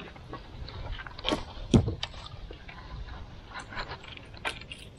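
Scattered clicks and knocks of fishing gear and the hull in a small boat, with one louder knock a little under two seconds in, over a low rumble.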